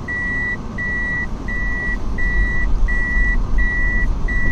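A vehicle's reversing beeper sounding a steady high beep about one and a half times a second, over a low engine and road rumble.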